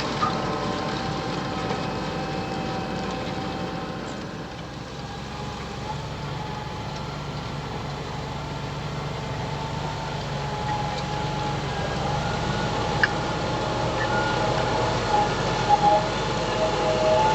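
Fendt 724 Vario tractor running under load while pulling a six-furrow plough, a low engine hum with a steady whine above it. It grows louder through the second half, and two or three short sharp knocks sound near the end.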